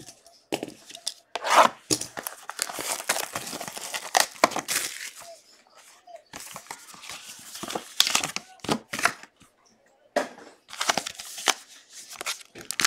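Packaging of a Gold Rush Lightning trading-card box being torn open and crinkled by hand: irregular rips and rustles with clicks, then the black foil pouch inside being pulled open, with two short pauses.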